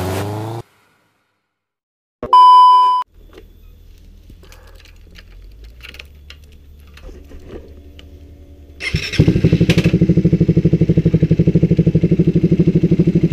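A short, loud beep a little after two seconds in. About two-thirds of the way through, a 2016 Suzuki Satria FU Fi's single-cylinder four-stroke engine is started and settles into a steady idle.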